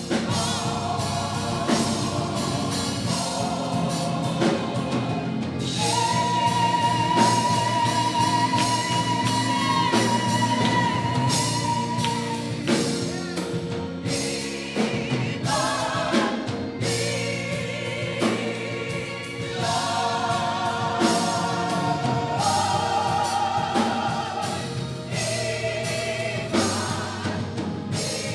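Gospel choir singing, with one high voice holding a long note with vibrato for several seconds about six seconds in.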